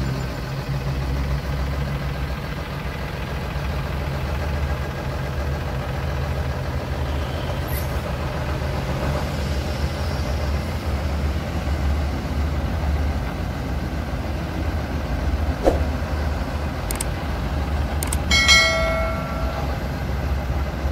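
Mercedes-Benz truck's diesel engine idling with a steady deep rumble. About eighteen seconds in, a short horn toot sounds over it.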